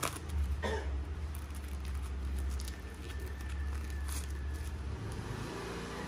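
A few short clicks and rustles of a paper lighter box being handled and opened, over a steady low rumble that fades out about five seconds in.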